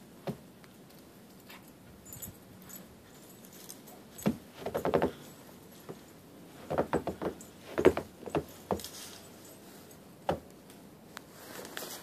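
Footsteps crunching in fresh snow close by, coming in uneven clusters of steps, loudest about eight seconds in.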